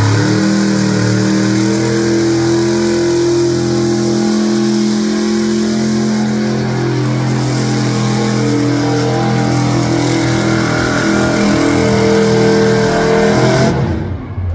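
Pulling truck's engine held at high revs at full throttle through a pull. The revs climb in the first couple of seconds, hold steady, and the engine sound drops off sharply near the end.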